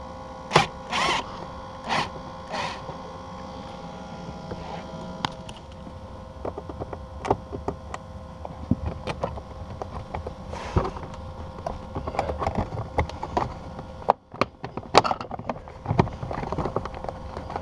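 Plastic car interior trim being worked loose by hand: scattered clicks, taps and knocks as the console side panel's screws are undone and the panel is pried and pulled. A faint steady hum runs underneath.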